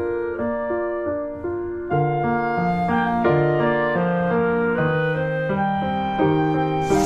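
Calm instrumental background music led by piano, with deeper bass notes coming in about two seconds in.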